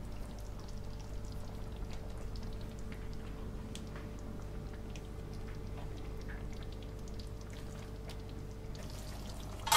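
Chicken in crushed-tomato sauce simmering in a frying pan, with many small bubbling pops and the scrape of a plastic spatula stirring it, over a steady low hum. A brief louder knock comes right at the end.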